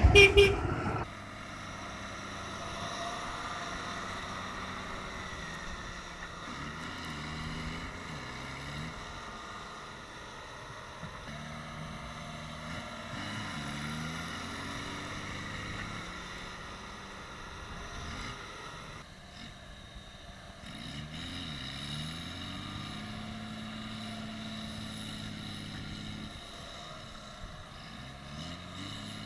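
Diesel engines of John Deere tractors working hard at a distance, their pitch rising and falling again and again as they strain to pull a tractor stuck in mud. A louder close-up tractor sound breaks off about a second in.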